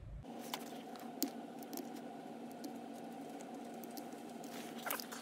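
Light, scattered clicks and ticks of a screwdriver tightening the small screws that hold the throttle plate to the throttle shaft inside a Honda XR650R carburettor's bore, over a steady low hum.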